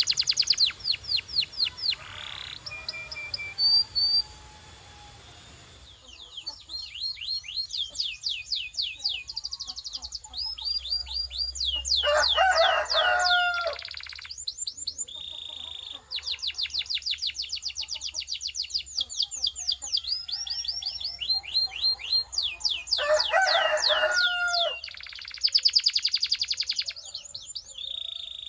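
Canary singing: long trills of rapidly repeated high notes, one phrase after another, with a lower, fuller phrase twice.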